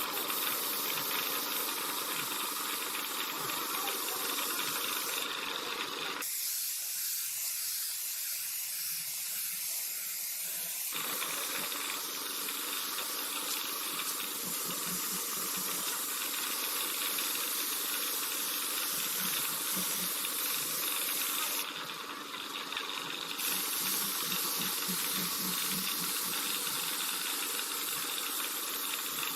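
Steady hiss of a paint spray gun spraying, with abrupt changes in tone where the takes are cut together.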